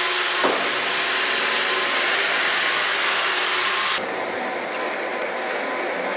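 Sleeper-incising machine running as a wooden railway sleeper is fed through it: a loud, steady rushing noise with a short knock about half a second in, dropping to a quieter steady running noise about four seconds in.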